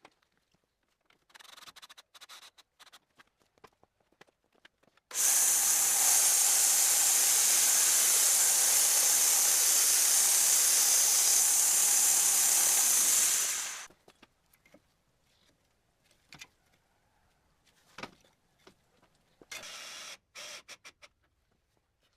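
Homemade power-tool machine running: a loud, steady, high-pitched whirring noise that starts abruptly about five seconds in and cuts off about nine seconds later. Short, quieter bursts of the tool come before and after.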